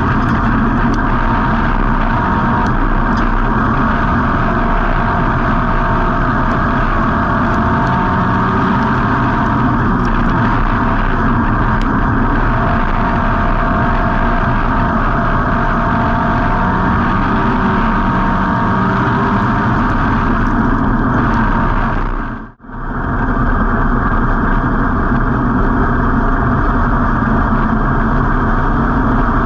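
Street-stock race car's V8 engine running loud and steady, heard from inside the car, its pitch shifting slightly as the car goes around the track. The sound cuts out sharply for a split second about three quarters of the way through.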